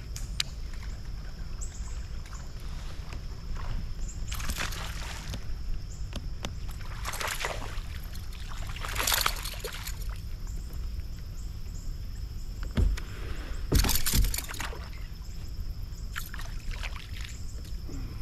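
Water sloshing and splashing around a kayak: several separate splashes a few seconds apart over a steady low rumble, with a couple of sharp knocks about two-thirds of the way through.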